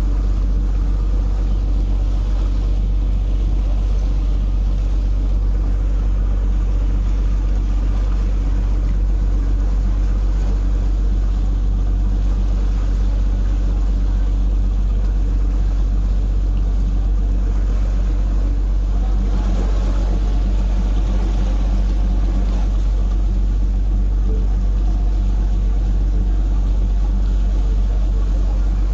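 Harbour ferry's engine running steadily underway, a constant low drone with a hum of steady low tones beneath a rushing haze.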